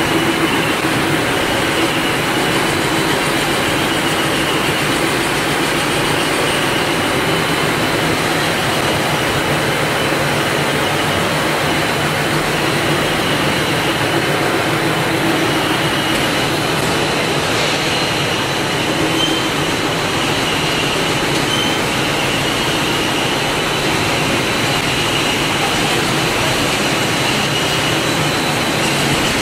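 Wood rotary cutting machine (veneer lathe) running, a spinning log being peeled into thin veneer against its knife: a steady, dense mechanical din with a faint steady high whine.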